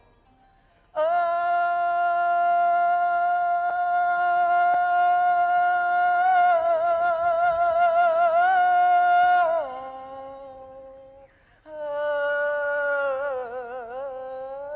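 A single voice holding one long sung note for about eight seconds, wavering near its end before dropping lower and fading; after a short pause a second long note comes in, wavers and slides down.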